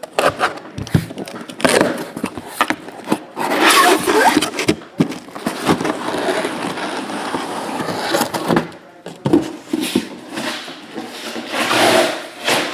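Cardboard shipping case being opened by hand: packing tape and cardboard flaps scraping, crackling and knocking, with a longer continuous scraping stretch in the middle.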